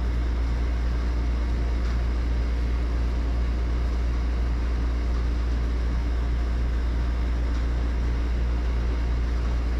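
Steady, even low hum of a running machine, with no distinct knocks or hammer blows.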